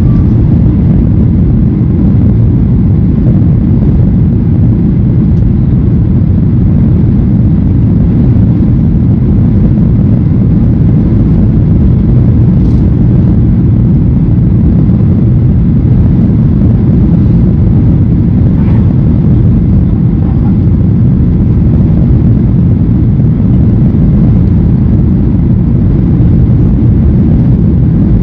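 Steady low rumble of a Boeing 737 airliner's engines and airflow, heard from inside the passenger cabin during the descent to land.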